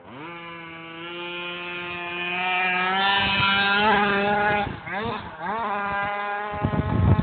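Gas-powered RC car's small two-stroke engine revving up and held at high revs. It drops off briefly about five seconds in, revs again, then cuts out near the end, where a rush of low noise follows.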